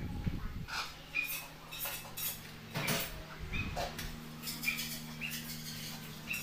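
Light clicks and clinks of small screws and plastic parts being picked up and handled on a plastic-covered table, with a few short high chirps or squeaks among them.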